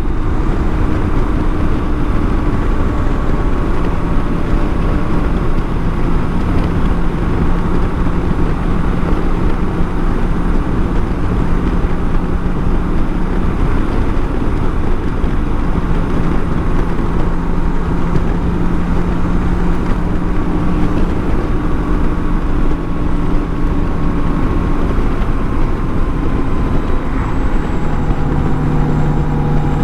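BMW K1600 GTL's inline-six engine running while riding at a steady pace, under a constant heavy rush of wind noise. Its note holds steady for long stretches and drops a little lower near the end.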